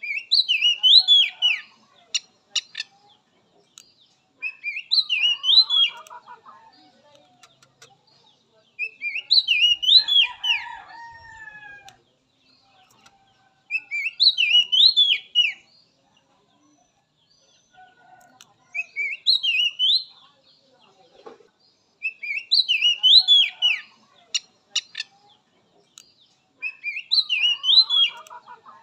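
Oriental magpie-robin (kacer) singing: the same short phrase of quick rising and falling whistled notes, repeated seven times, about every four seconds. Fainter, lower chirps come alongside several of the phrases.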